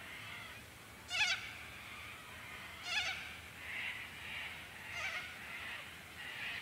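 An animal calling outdoors: a short cry that comes again about every two seconds, three times, with softer calling in between.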